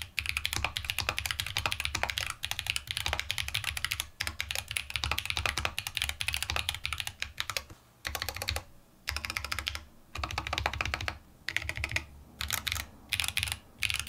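Typing on a Zenith 65% custom mechanical keyboard with Holy Panda tactile switches on a brass plate: quick runs of loud, clacky keystrokes in bursts, broken by short pauses.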